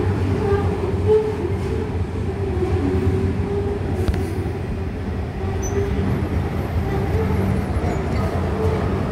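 Freight train of covered hopper wagons rolling past, a steady rumble of wheels on rails with a low drone.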